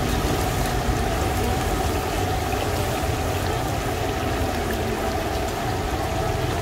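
Steady ambient noise of a busy street market: an even hiss over a low rumble, with no distinct voices or sudden sounds.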